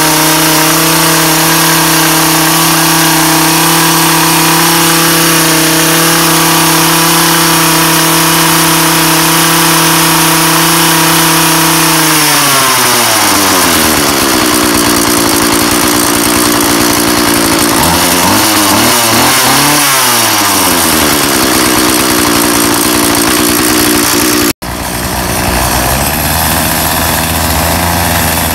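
Craftsman 32cc two-stroke string trimmer engine on its first run after new fuel lines. It runs at high speed, drops to idle about twelve seconds in, and revs up and back down once. After a sudden cut it runs steadily again as it edges grass.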